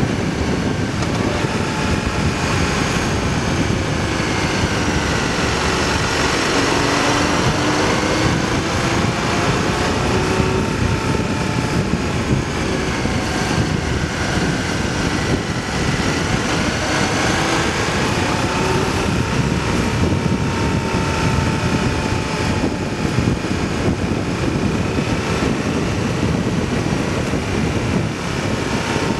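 Motorcycle engine running at road speed, its pitch rising and falling as the bike speeds up and slows through the bends, under steady wind rush on the microphone.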